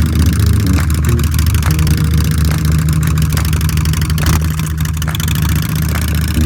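2022 Harley-Davidson Road Glide's V-twin engine running steadily and loudly, with a rapid, uneven pulse.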